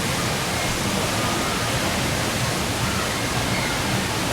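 Steady loud rushing noise with no distinct events.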